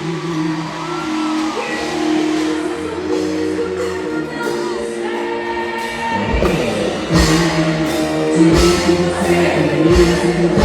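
Music with singing over long held notes; about six seconds in, heavy drum beats come in and the music gets fuller.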